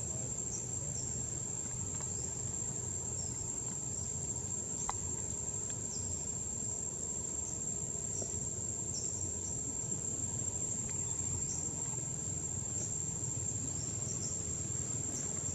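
Steady high-pitched drone of insects, with scattered short falling chirps over a low background rumble.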